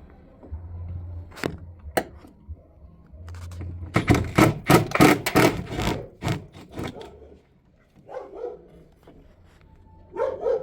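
Hand tool clicking and scraping against the metal screws and grille of a twin-tub washing machine while a transmission mounting screw is worked loose. A couple of sharp clicks come first, then a loud run of rapid clatter and scraping lasting about three seconds.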